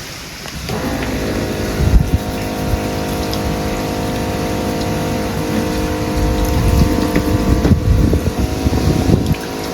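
A Daihatsu Hijet Jumbo kei truck's engine starts running about a second in and idles steadily, warming up, with gusts of wind buffeting the microphone.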